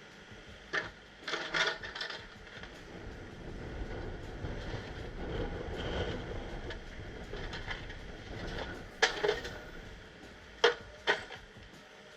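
Heavy equipment working boulders: sharp clanks and knocks in short clusters near the start and again near the end, with a low rumbling scrape swelling in between.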